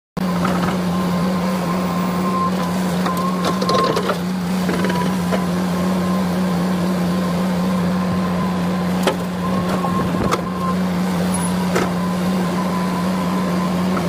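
Komatsu hydraulic excavator running steadily with a constant low drone and a thin whine that comes and goes, with a couple of sharp knocks about two-thirds of the way through.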